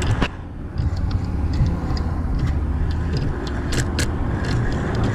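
Steady low rumble of road traffic, with a Penn Slammer spinning reel being cranked to bring in a hooked fish: scattered clicks and handling noise, more of them in the second half.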